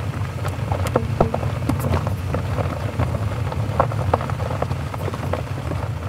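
Pickup truck driving on a gravel road: a steady low road rumble with irregular sharp ticks of gravel.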